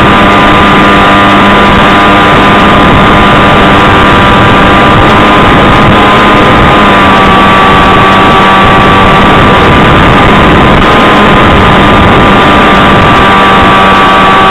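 SkySurfer 1400 model glider's electric motor and propeller running in flight, a steady whine under heavy wind rush, very loud and distorted. The whine dips slightly in pitch about seven seconds in.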